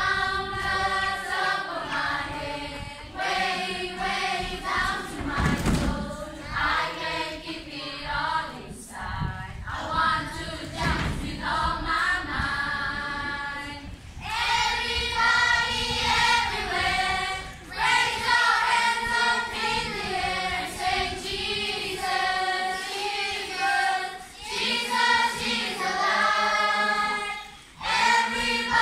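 Children's choir singing together as a group. About halfway through the singing pauses briefly, then comes back louder.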